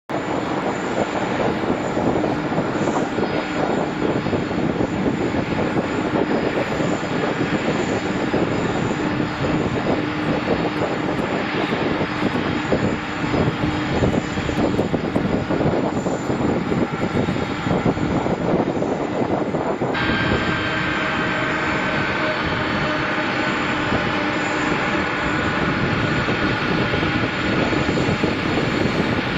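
Jet airliner engines running loud and steady. An abrupt change comes about two-thirds of the way through, after which a high engine whine, slowly falling in pitch, sits over the noise.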